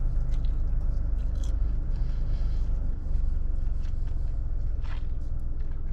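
Someone chewing a mouthful of gozleme, with faint crackly mouth sounds, over a steady low rumble inside a car's cabin.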